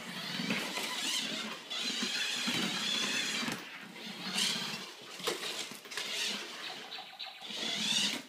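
Small electric drive motor of a radio-controlled inflatable Dalek toy whining in bursts of a second or two as it is driven and turned, its pitch wavering with speed.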